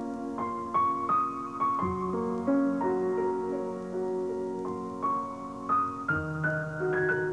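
Slow, gentle piano music: a melody of single notes over held bass notes that change twice.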